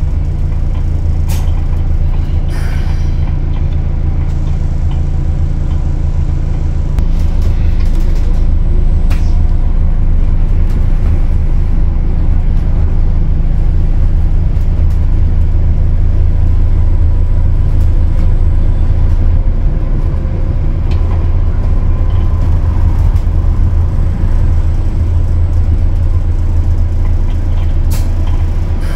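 Low, steady drone of an Alexander Dennis Enviro400H hybrid double-decker bus's drivetrain, heard on board, growing a little louder about seven seconds in, with a few short rattles and clicks.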